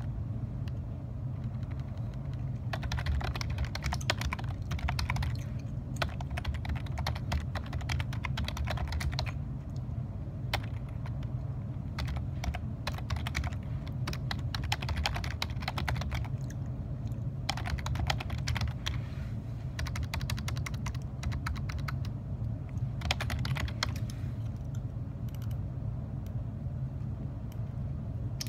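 Typing on a computer keyboard: bursts of rapid key clicks with short pauses between them, thinning out near the end. A steady low hum runs underneath.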